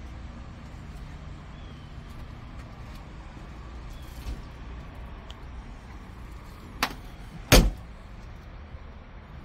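A steady low background rumble. About three-quarters of the way through come two sharp knocks, less than a second apart, and the second is much louder than the first.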